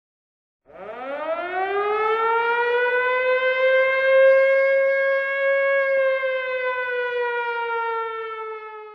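Civil-defence (tornado) warning siren winding up from a low pitch to a steady wail over about two seconds, then slowly winding down and fading near the end.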